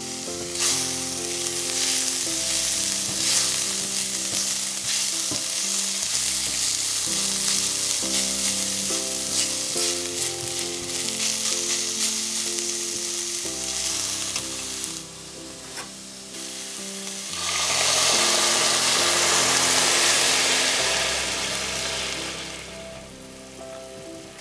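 Sliced mushrooms and chopped aromatics sizzling in oil in a stainless steel sauté pan, stirred with a spatula. About seventeen seconds in, red wine hits the hot pan and the sizzle jumps to a loud hiss for a few seconds, then dies down as the pan is deglazed.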